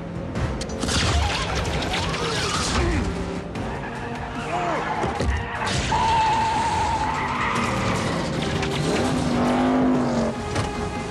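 Movie car-chase soundtrack: car engines running hard and tyres squealing and skidding, with music underneath. A steady high tone is held for about a second, roughly six seconds in.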